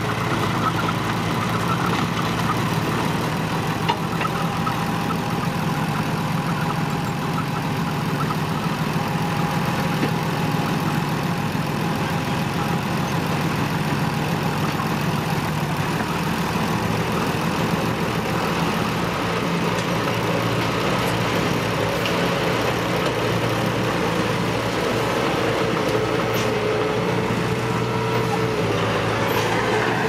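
Small dump truck's engine running steadily while its bed tips a load of dirt, with a fainter higher drone joining in over the second half.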